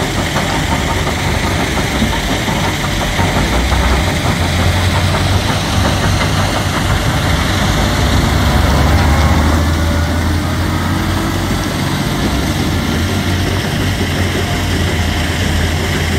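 Heavy Iveco tipper truck's diesel engine pulling hard from a standstill up a steep quarry ramp under about 45 tonnes of load. The low engine drone builds about four seconds in, is strongest around nine seconds, then settles a little.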